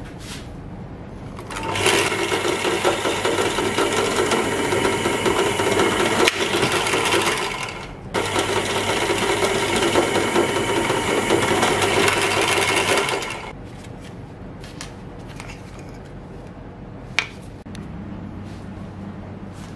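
Bench drill press running and its bit cutting through a wooden handle scale laid on the steel blade. There are two drilling passes: one of about six seconds, then a short break, then about five seconds more before it stops.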